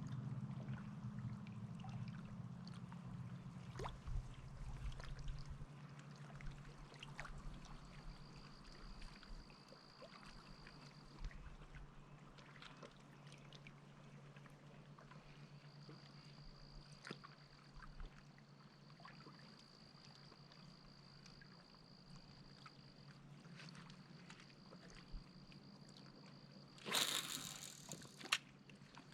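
Water sloshing and trickling around a kayak, with scattered small knocks and drips. A steady high-pitched trill comes and goes from about eight seconds in, and a short louder splash or rush comes near the end.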